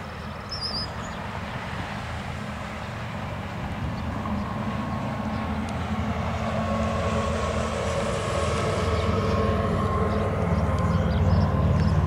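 American Signal T-135 rotating outdoor warning siren sounding steadily, its tone faint under a heavy low rumble. The whole sound grows louder over the stretch.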